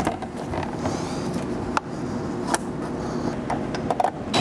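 A steady mechanical running noise, with a couple of sharp clicks partway through.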